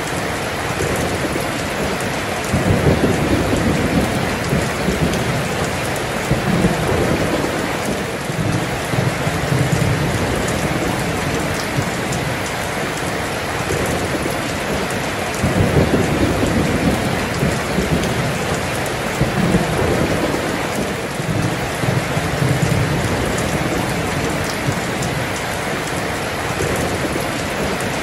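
Heavy rain pouring down with a dense, steady hiss, while rolling thunder rumbles low several times, swelling loudest about three seconds in and again about halfway through.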